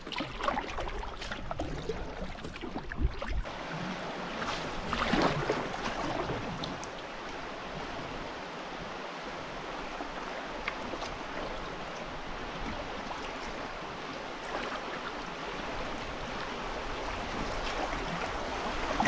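Rushing water of small river rapids around a canoe as it runs them, a steady wash of white water with a few splashes and knocks in the first several seconds.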